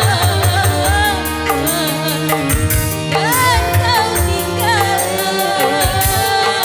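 Live band music: a winding, ornamented lead melody that bends in pitch, over a bass line and a steady drum and cymbal beat.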